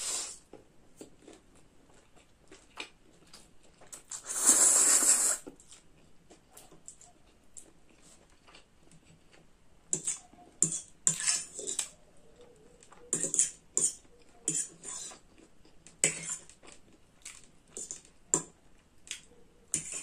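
Someone eating spicy instant ramen noodles: a long, loud slurp of noodles about four seconds in. Through the second half come short clicks and smacks of chewing and of a metal fork against a ceramic plate.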